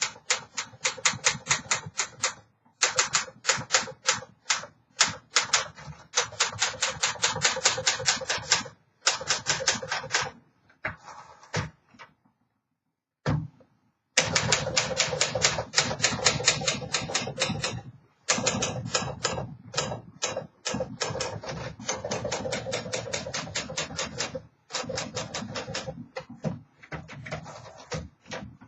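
A refurbished 1959 Smith Corona Silent Super manual typewriter being typed on: fast runs of key strikes, several a second, broken by short pauses and one longer pause about halfway through.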